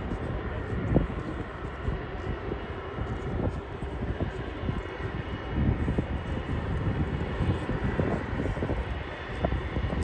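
Jet airliner engines running with a steady whine, under strong wind buffeting the microphone in gusts.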